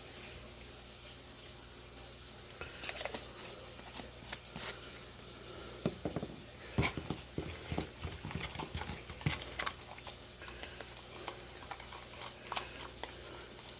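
Kitchen food-preparation handling noises: irregular small clicks, taps and soft knocks of hands and utensils working at the counter, over a low steady hum.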